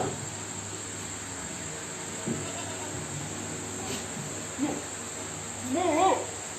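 Goats bleating over a steady high drone of insects; the loudest is a single wavering, trembling bleat about six seconds in, with fainter calls earlier.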